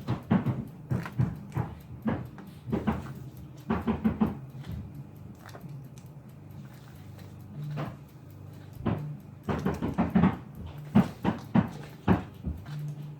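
Roofing crew nailing down shingles on a house roof: irregular sharp knocks, several a second, with a lull of a couple of seconds about midway.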